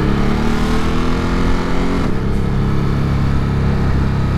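Ducati Monster L-twin engine running under the rider, heard at the bike. Its revs ease down over the first couple of seconds, then pick up about two seconds in and hold steady.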